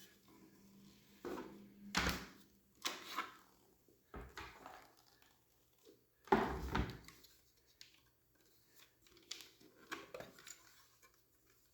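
Parts of a paintball marker and its magazine being handled on a table: a string of separate knocks, clicks and clunks, the loudest about six seconds in.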